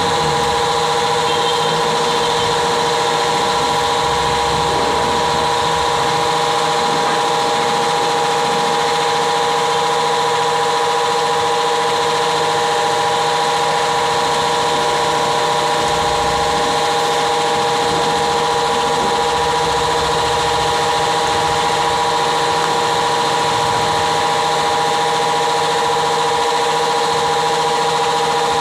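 Steady machine hum with several constant tones, from a hydraulic press brake's pump motor running. It does not change in pitch or level.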